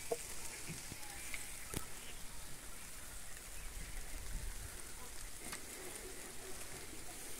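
Faint, steady outdoor background hiss with a few light clicks and a brief low rumble around the middle.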